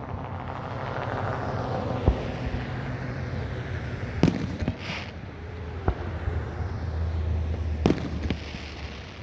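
Fireworks going off: about five sharp bangs a second or two apart, with a brief hiss about five seconds in, over a steady low hum.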